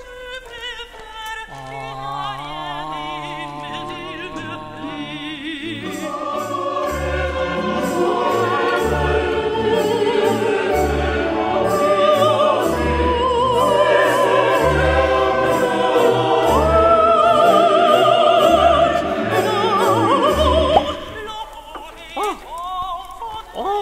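Operatic solo singing with wide vibrato over an orchestral accompaniment, which grows into a heavy, pulsing bass line. It builds steadily louder and breaks off suddenly about 21 seconds in, leaving quieter short sounds.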